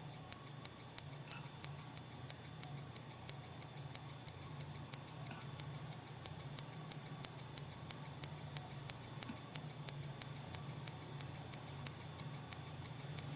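Rapid, even clock-like ticking, several ticks a second, over a low steady hum, with no snoring or breathing heard. The ticking counts off the time while the sleeper's breathing has stopped in an obstructive sleep apnea pause.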